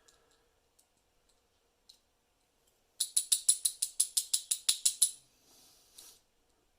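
Rapid metallic clicking and jingling, about ten bright ringing clicks a second for two seconds, as small metal lock parts are rattled or handled; a single click follows near the end.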